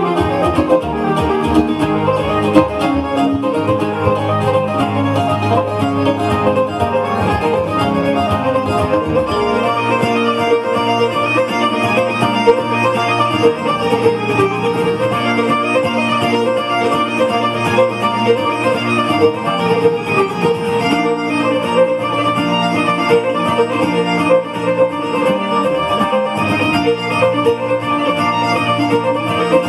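Gold Tone OM800+ octave mandolin playing an Asturian folk tune, a fast picked melody on its paired steel strings. A low sustained bass note under the opening stops about nine seconds in.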